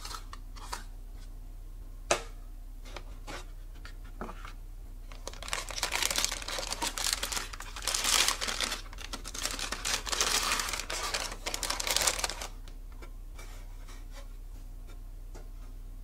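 Thin clear plastic bag crinkling and rustling for about seven seconds as a microphone is worked out of it, after a single sharp tap a couple of seconds in.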